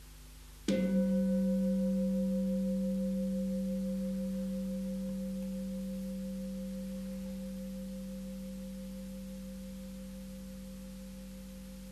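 A large meditation singing bowl, a standing bowl gong, struck once with a striker about a second in. It rings on with a deep steady hum and a higher overtone, slowly dying away, while its brighter upper partials fade within the first couple of seconds.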